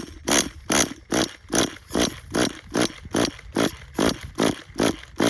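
Tamiya TGS-R nitro RC car engine making a 'crazy noise': a steady train of loud pulses, about two and a half a second. The owner takes it for a sign of a worn-out, overheating engine with low compression.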